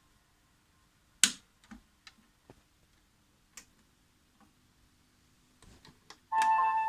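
A few sharp clicks, the loudest about a second in. Near the end a program timer's built-in electronic chime starts playing a melody of clear bell-like tones.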